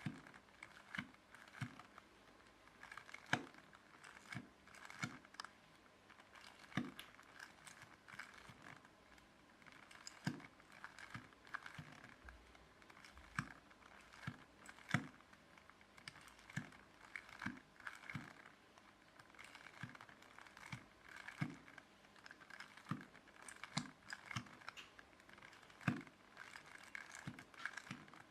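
Plastic Rubik's Cube layers being turned again and again, a run of irregular light clicks and clacks, about one or two a second.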